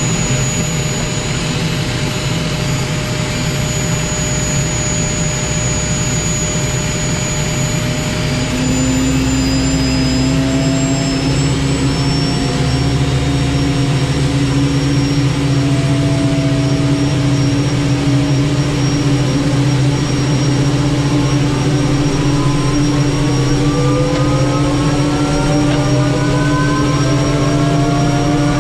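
Aérospatiale Gazelle helicopter's turboshaft engine and rotors running steadily. About eight seconds in a new steady tone joins, and over the last third several whines rise in pitch.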